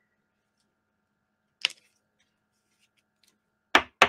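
Quiet room with a single short click about a second and a half in, then three quick, louder sharp clicks near the end.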